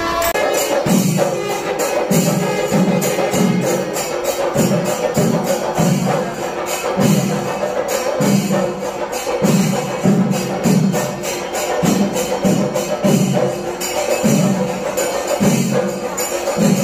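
Kerala temple percussion ensemble (melam) playing: deep drum strokes about twice a second under a dense, continuous clash of small hand cymbals.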